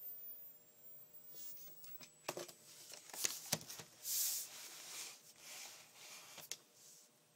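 Faint handling noises: a scattered run of soft clicks and short rustles, with a brief hissy rustle just after the middle.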